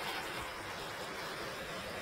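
Hand-held gas torch burning with a steady hiss, its flame played over the carved wood to scorch off frayed fibres left by the chainsaw.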